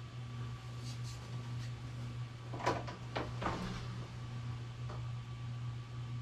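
A few short knocks and clatters of workbench parts being handled during assembly, clustered about two and a half to three and a half seconds in, with fainter ticks around them, over a steady low hum.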